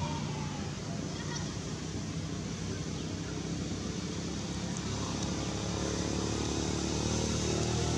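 Steady outdoor background noise with a low hum that grows louder over the second half.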